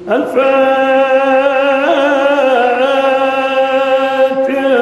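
A male Quran reciter's voice chanting in the melodic tajwid style, holding one long ornamented note; a new note begins near the end.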